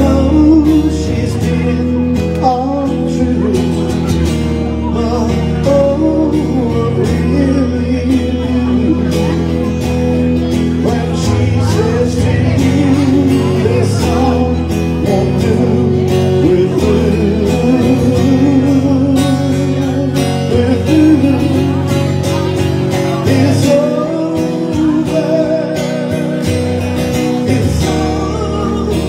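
Live music: a man singing over his own amplified electric guitar, with sustained low bass notes underneath.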